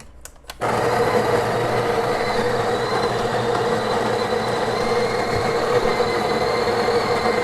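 Breville Barista Express's built-in conical burr grinder grinding coffee beans at its coarsest setting: the motor starts suddenly about half a second in and runs as a steady whir with a low hum. A few light clicks come just before it starts.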